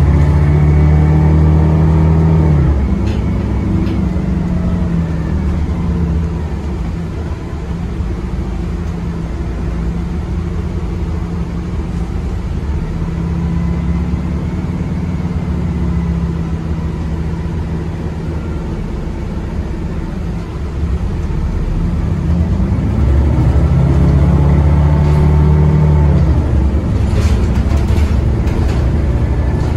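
Cabin sound of a Grande West Vicinity CNG bus under way, its Cummins B6.7N inline-six natural-gas engine and Voith four-speed automatic pulling the bus along over road noise. The engine note rises in pitch as the bus accelerates and drops back several times, with a few sharp rattling clicks near the end.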